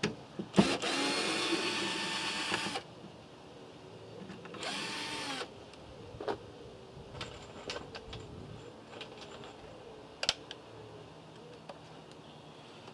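A cordless drill running in two bursts, about two seconds and then about one second, its motor whining as it spins up and down. A sharp click comes just before the first run and another near the end.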